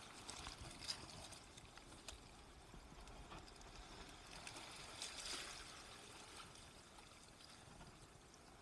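Faint seawater sloshing and trickling over rocks, with a few light clicks and a slightly louder wash about halfway through.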